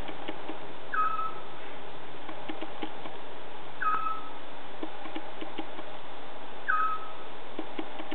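Scops owl calling: a single short whistled note, dipping slightly in pitch, repeated three times about three seconds apart. Behind it a steady hiss with scattered faint clicks.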